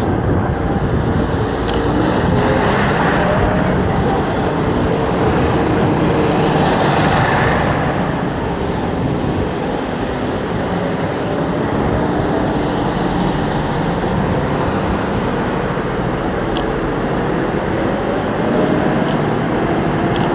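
Inline skate wheels rolling on pavement, a steady loud rumble, with road traffic alongside.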